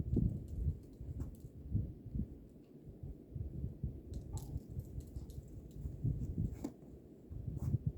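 Wind buffeting the microphone in irregular low rumbling gusts, with a few faint clicks.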